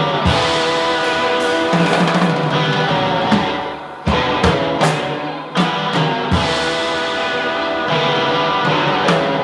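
A live band of saxophone, drum kit and guitar playing: long held notes over scattered drum and cymbal hits.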